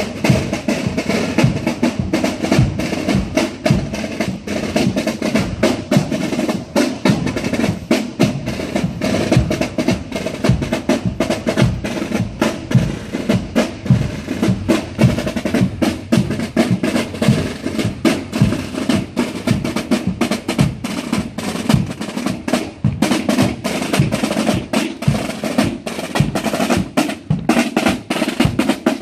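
Marching band's drum corps playing a marching beat: rapid snare drum strokes and rolls over a bass drum, keeping a steady, unbroken rhythm.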